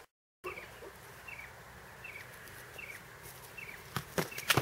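Padded sparring swords clashing: three sharp knocks in quick succession near the end. Behind them, short, high, falling chirps repeat about twice a second.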